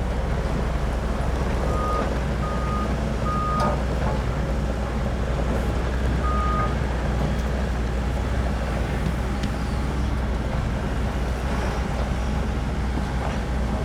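Doosan DX140LCR-5 short-radius excavator's diesel engine running steadily. A high alarm beeper sounds three short times in quick succession about two seconds in, then once more a few seconds later.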